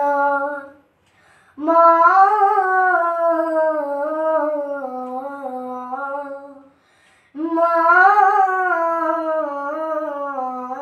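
A boy singing a Bengali Islamic gojol unaccompanied, in two long drawn-out phrases without clear words, each swelling up in pitch and then sinking slowly, with a short pause between them.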